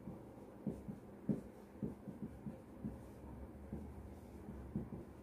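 Marker pen writing on a whiteboard: a run of short, faint strokes, two or three a second.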